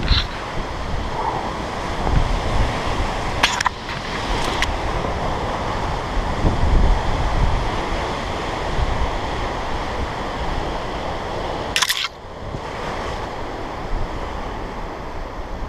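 Strong wind buffeting the microphone: a loud, gusting rush with a heavy low rumble. A few sharp clicks cut through it, about three and a half seconds, four and a half seconds and twelve seconds in.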